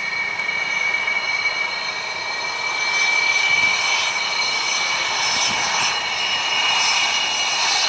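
Two-seat F/A-18D Hornet's twin General Electric F404 turbofan engines whining as the jet rolls out on the runway after landing. A steady high whine over a hiss, growing louder about three seconds in.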